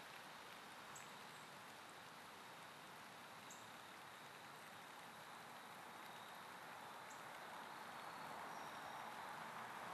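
Near silence: a faint steady hiss with a few tiny, soft ticks.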